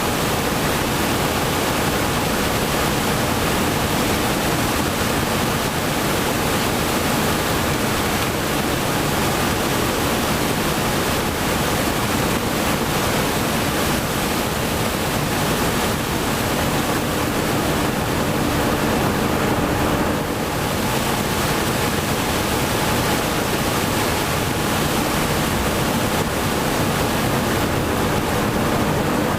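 Heavy farm machinery harvesting maize: a steady, dense rush of noise with a faint engine hum beneath it, easing slightly for a moment around two-thirds of the way through.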